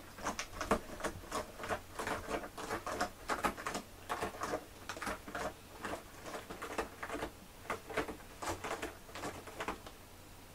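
Rapid, irregular rustling and crackling of something being handled, a dense run of small clicks that goes on with short pauses.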